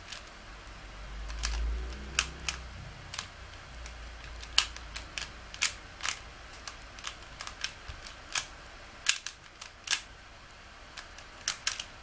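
Plastic Rubik's cube being turned fast in the hands during a timed solve: its layers click and clack in irregular sharp bursts, a few per second, with a brief low rumble about a second in.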